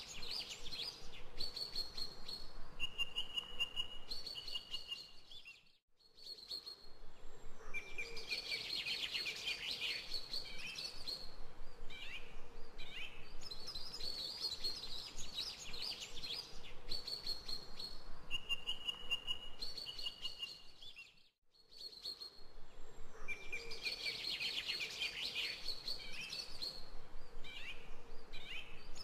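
Birds chirping and singing: clear whistled calls and quick trills. The same stretch of birdsong repeats about every fifteen seconds, each time after a brief fade-out, as a looped background track.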